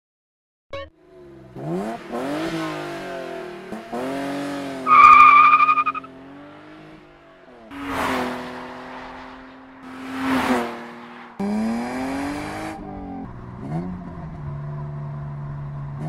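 BMW 323i (E36) straight-six on its stock exhaust, revving and accelerating in several short cuts, the engine note climbing and dropping again and again. A loud high squeal rides over it about five seconds in, and two brief rushing surges come near eight and ten seconds.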